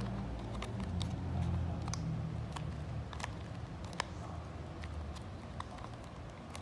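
Clear plastic parts of an Evin Daisy wearable breast pump being handled and fitted together: scattered light plastic clicks and taps, the sharpest about four seconds in, over a low rumble.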